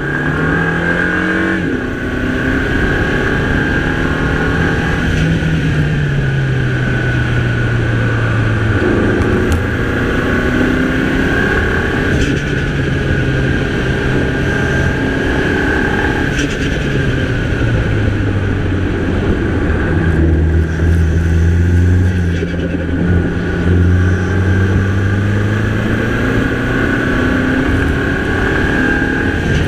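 Mini Cooper's turbocharged 2.0-litre four-cylinder engine under hard driving on a winding road. Its pitch climbs as it pulls and drops back as it eases off, several times, with a deep low stretch about two-thirds of the way through and a long climb near the end.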